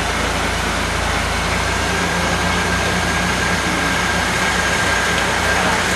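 Steady mechanical running noise in a dyno bay, with no revving. A thin steady whine comes in about two seconds in.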